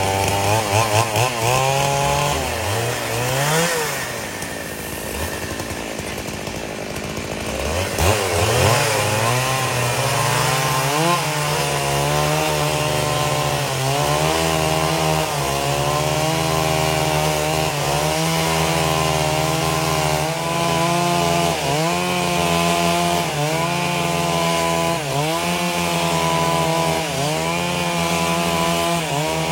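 Chainsaw revving and dropping back to idle, then held at high revs from about eight seconds in while ripping lengthwise along a board. The engine pitch dips briefly and recovers again and again as the cut loads it.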